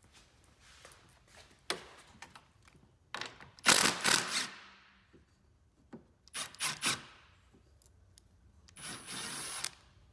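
Milwaukee cordless driver running in three short bursts on the bolts of a snowmobile steering post mount. The first, about three seconds in, lasts over a second and fades out; the second, a little past six seconds, is short and choppy; the last, near the end, is steadier with a thin high whine. Light clicks and taps of tools on metal come between the bursts.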